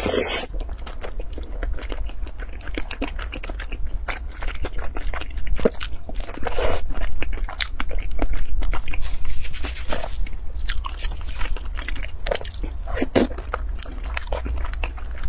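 Close-miked mouth sounds of eating saucy food: a slurp right at the start, then biting and chewing with wet smacks and crunching, and chopsticks clicking now and then.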